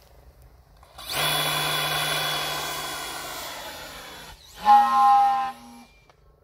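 Hacker B50 7L brushless motor and 17x18 propeller of an F5B hotliner glider running under power on a hand launch. It is a steady whine that fades as the model climbs away, then cuts off sharply. Soon after comes a shorter, louder burst of power that rises in pitch and holds, then stops.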